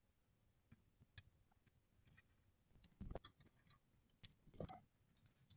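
Near silence with a few faint, irregular metal clicks and taps, a small cluster of them about halfway through: the mounting bolts being set by hand into the base of a Celestron CGX equatorial mount on its tripod.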